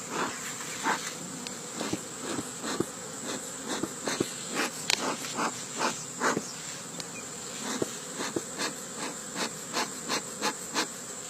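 A hive of honeybees buzzing: a steady hum from many bees, with frequent brief louder buzzes.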